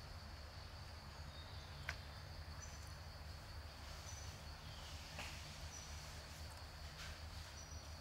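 Faint outdoor ambience: a steady, high-pitched insect drone, with a few short high chirps and a single sharp click about two seconds in.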